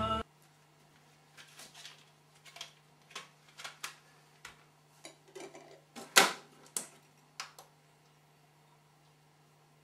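Music cuts off, then a CD is handled in a portable CD boombox: a string of small plastic clicks and clatter as a disc is taken out and another put in. The lid snaps shut about six seconds in, the loudest click. A faint low steady hum sits underneath.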